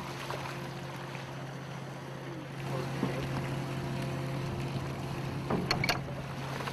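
Steady low hum of a sport-fishing boat's machinery with a little wind, and a couple of sharp knocks a little before the end.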